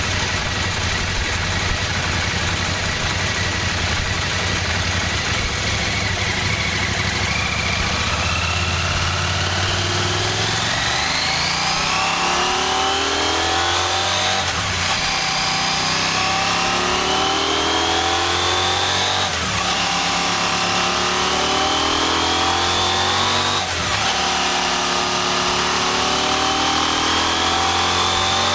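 KTM 790 Adventure R's parallel-twin engine running through its stock muffler on a dynamometer under load. Engine speed climbs in stages, with a rising whine from the dyno drum, drivetrain and spinning tyre. Each climb ends in a brief break and a drop in pitch, several times over.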